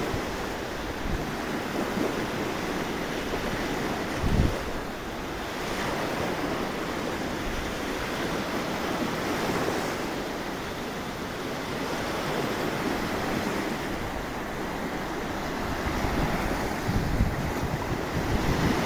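Rough sea surf breaking and washing on the shore, steady, with strong wind buffeting the microphone in low gusts, most noticeably about four seconds in and again near the end.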